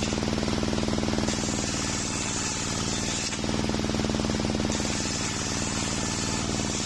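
Homemade sawmill circular saw ripping waru wood planks, run by an engine with a steady, rapid beat and hum. A hissing cutting noise swells twice, from about a second in and again from about five seconds in, as boards pass through the blade.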